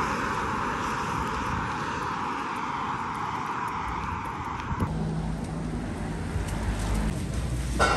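Road traffic noise: a steady rush of passing vehicles. About five seconds in it changes abruptly to a low, steady engine drone.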